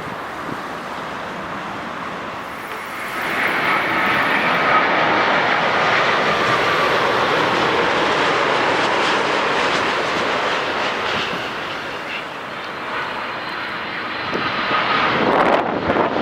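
Boeing 787 Dreamliner's jet engines during a landing approach: a steady rushing jet noise with a faint whine. It grows louder about three seconds in as the aircraft passes, and rises again near the end.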